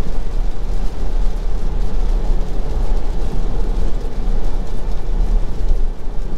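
Steady road and rain noise inside a Tesla Model Y's cabin: tyres hissing on a rain-soaked highway and rain on the car, over a strong low hum, with no engine note from the electric car.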